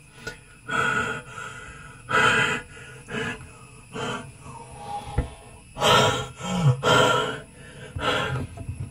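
A man gasping and breathing hard, one heavy breath about every second, with a short groan about two thirds of the way through. He is short of air, the oxygen running low inside a sealed water tank.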